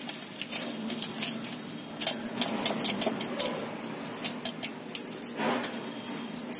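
Small plastic-foil coffee sachet crinkling and rustling as instant coffee powder is shaken and tapped out of it into a stainless-steel mixer-grinder jar of ice cubes, a steady run of light crackles and ticks.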